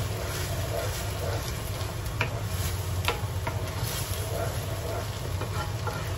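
Rice sizzling as it is stir-fried in oil in a wok, a wooden spatula scraping and stirring through it, with sharp taps of the spatula on the pan about two and three seconds in.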